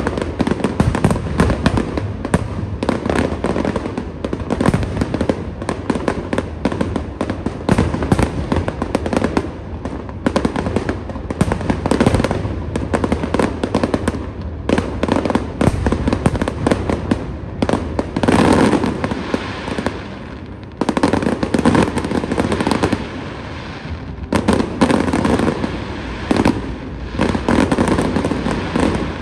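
Fireworks display: a dense, continuous barrage of bangs and crackling, easing briefly about twenty seconds in and again a few seconds later before building back up.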